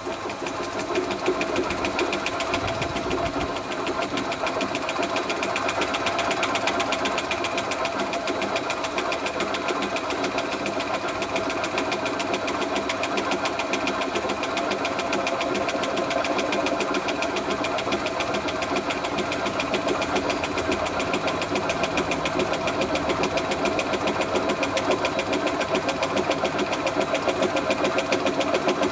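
High-pressure water pump running steadily with a fast, even pulsing beat, forcing water into an old car tyre to build pressure towards bursting it.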